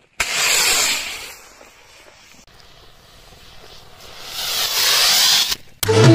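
Firework rocket ignites with a sudden rushing hiss that fades within about a second. A second, rising hiss of burning propellant builds about four seconds in and cuts off abruptly.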